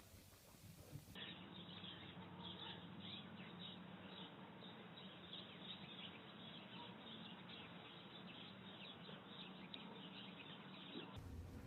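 Faint, rapid high chirping, typical of small birds, over a low steady hum and hiss.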